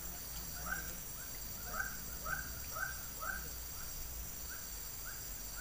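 Crickets and other insects trilling steadily in a swamp, with an animal's short call repeated about twice a second, loudest around two to three seconds in and fading toward the end.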